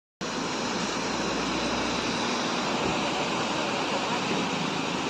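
Waterfall's steady rush of falling water, an even roar without breaks.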